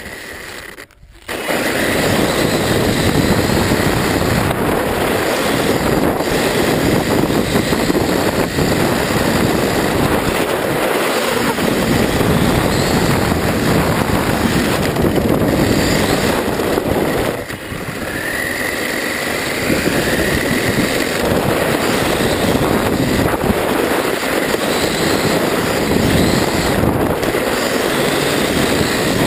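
Steady, loud rushing of wind over the microphone of a camera moving fast just above the road, mixed with road noise.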